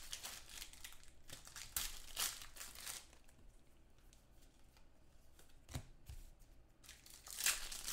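A trading card pack's plastic wrapper torn open and crinkled by hand, then the cards handled, with a single soft knock late on.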